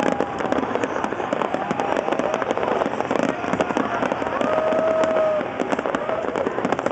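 Large New Year's Eve fireworks display going off without pause: a dense, irregular barrage of bangs and crackling.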